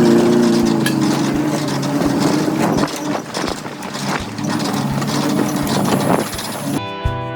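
An engine running steadily with repeated knocks and clatter, its pitch settling after a rise at the start; guitar music comes in near the end.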